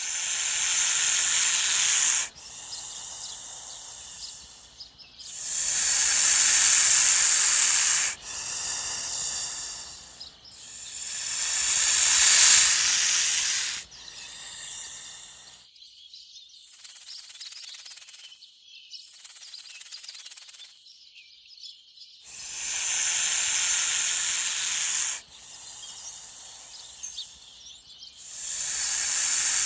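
A snake hissing over and over: long hisses of two to three seconds each, with fainter hisses in between.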